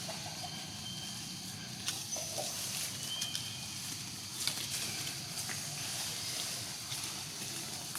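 Outdoor background: a steady high hiss with a few short, thin high-pitched chirps and scattered clicks.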